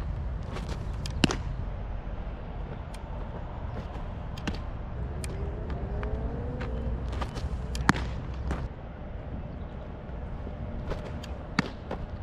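Fastballs around 84 mph smacking into a catcher's leather mitt: a few sharp pops, the loudest about a second in, others near eight and eleven and a half seconds in, over a steady wind rumble on the microphone.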